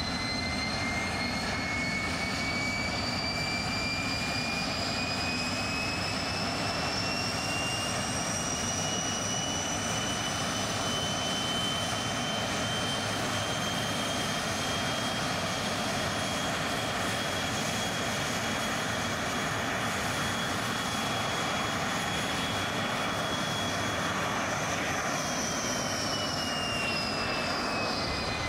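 Canadair T-33 Silver Star's Rolls-Royce Nene turbojet running, a steady roar with a high whine. The whine climbs in pitch over the first ten seconds or so, holds steady, then drops near the end as the engine is throttled back.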